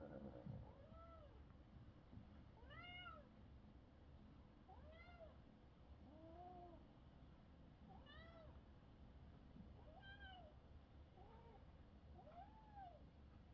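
A small kitten meowing faintly again and again, about eight short high meows, each rising and then falling in pitch, one every second or two.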